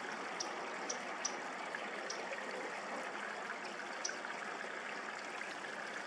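Steady rushing of running water, with a few short, high chirps heard faintly over it.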